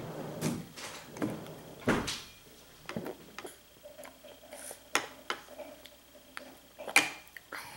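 A metal spoon clinking and scraping against a cereal bowl as a toddler eats: a string of irregular sharp clicks, the loudest about seven seconds in.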